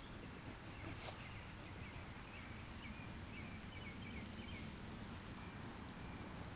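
Quiet outdoor ambience with a soft steady hiss. A run of faint, short, high chirps repeats for a few seconds mid-way, and a light tap sounds about a second in.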